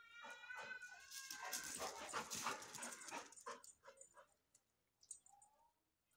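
A dog whining faintly in a high, thin, wavering tone for the first couple of seconds, followed by a run of short, scuffling noises that die away about four seconds in.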